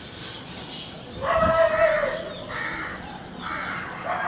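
A crow cawing: a few harsh calls, starting about a second in, the first the loudest and longest.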